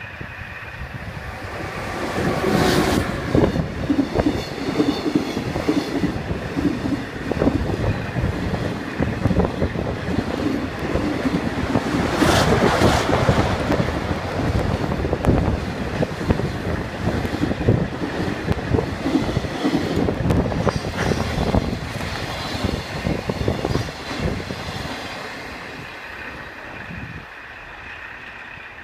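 Freight train passing through the station at speed. The rumble builds about two seconds in, and the wheels click over the rail joints as the wagons go by, then fade away over the last few seconds.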